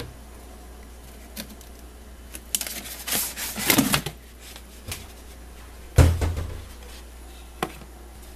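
Wooden kitchen cabinet being opened and rummaged in, with a rustling scrape as a paper plate is pulled out, then the cabinet door shut with a sharp knock about six seconds in, followed by a small click.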